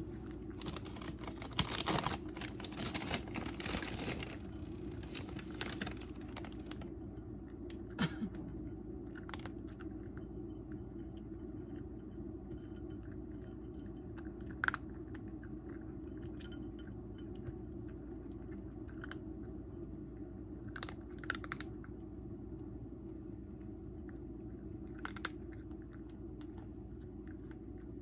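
A cat crunching dry kibble from a bowl: a run of small crunches and clicks, thickest in the first few seconds, over a steady low hum.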